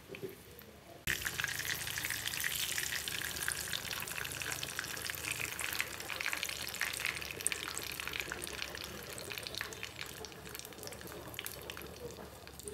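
Battered silkworms deep-frying in hot oil in a small pan: a dense crackling sizzle that comes in suddenly about a second in.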